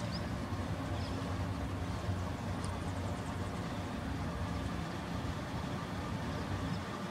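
Steady low drone of approaching GE AC44CW diesel-electric locomotives at a distance, their V16 diesel engines working as they lead a loaded coal train.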